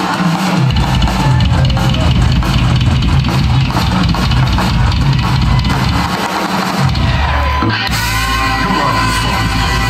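Live rock band playing loud: electric guitars and drum kit, with a saxophone joining in.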